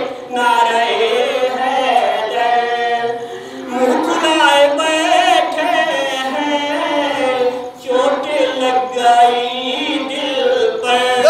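A man singing devotional poetry unaccompanied into a microphone, in long melodic phrases with held, wavering notes and brief pauses between lines.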